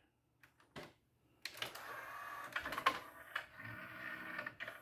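Sony TC-C5 five-cassette changer's tape-changing mechanism working after Skip is pressed: a faint click about a second in, then a small motor whirring with a few clicks as the changer swaps cassettes, stopping near the end.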